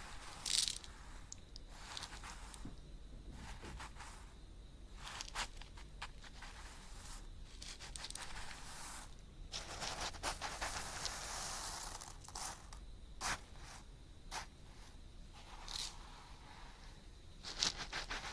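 Close-miked ASMR handling sounds: scattered crackly scrapes and crunches with small clicks, and a longer, denser stretch of scratchy noise about ten seconds in.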